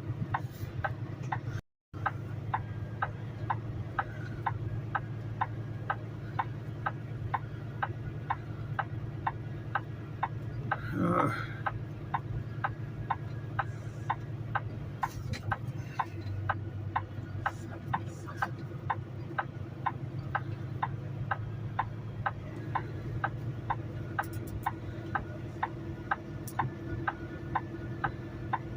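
Inside a semi-truck's cab: the engine's steady low hum with a regular ticking about twice a second. The sound drops out for a moment about two seconds in.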